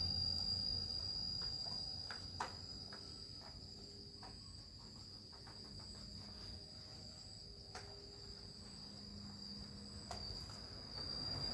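Insects trilling steadily at a high pitch, with a few faint taps and knocks.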